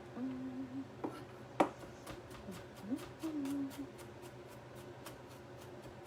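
Kitchen knife mincing garlic on a cutting board: two sharp knocks, then quick even taps about four a second. A person hums a few low notes over it.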